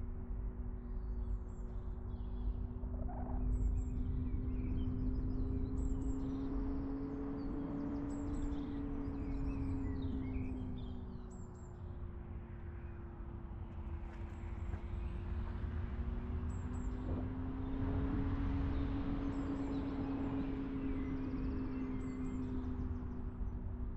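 A car being driven, with a steady engine and drivetrain hum whose pitch slowly rises and falls with road speed over a continuous low road rumble. The hum drops slightly about halfway through, then rises again.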